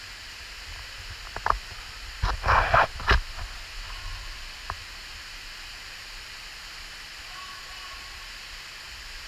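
Steady rushing of a small waterfall pouring down a narrow rock slot. A couple of sharp knocks about a second and a half in, then a short cluster of louder knocks and rustling between two and three seconds in.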